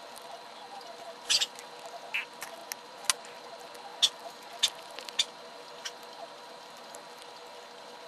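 About a dozen scattered sharp clicks and light taps from a mechanical pencil and its small parts being handled, most in the first six seconds, the loudest about four seconds in.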